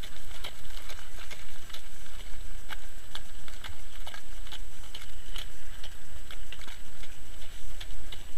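Hooves of a harness trotter walking in front of its sulky, clip-clopping on the sandy surface a little over two steps a second, over a steady low rumble.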